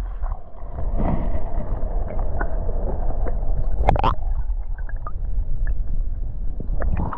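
River water heard through a camera held below the surface: a muffled, steady rumble and gurgle with the highs cut away, a few faint clicks, and one sharper noise about four seconds in.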